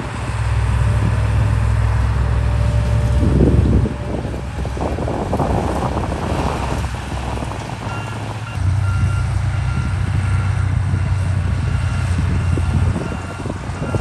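Diesel engine of heavy earthmoving machinery running hard. It eases off about four seconds in and picks up again past halfway, with a reversing alarm beeping in a steady series in the second half.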